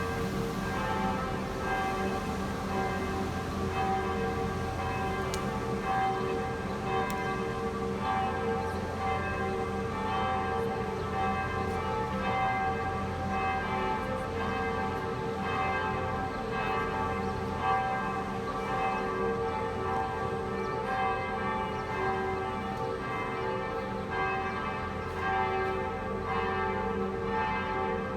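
Rouen Cathedral's church bells ringing together, several bells of different pitches striking over one another in a continuous peal.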